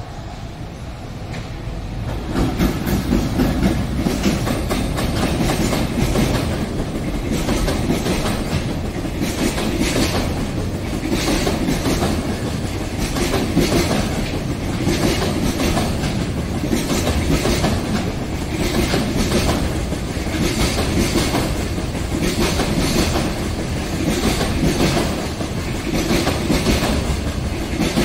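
A JR Freight container train passing close by, its wagon wheels clattering over the rail joints in a repeating rhythm. It grows louder about two seconds in as the train comes alongside.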